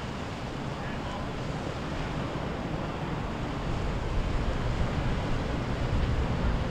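Wind buffeting the microphone over breaking waves, with the low drone of a passing boat's engine, growing louder over the last few seconds.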